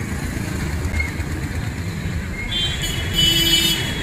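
Busy street traffic: motorbike and auto-rickshaw engines running in a steady low rumble. About two and a half seconds in, a high tone sounds for about a second and a half.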